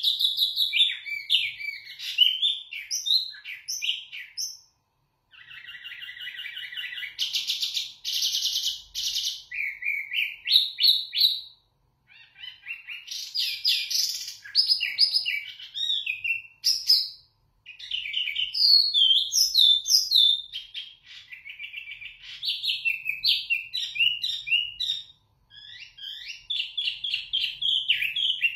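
A caged wambi mini songbird in full, loud, clear song ('gacor'): rapid whistled phrases that leap up and down in pitch, broken by a few short pauses. About five seconds in it gives a buzzy rattling trill lasting several seconds.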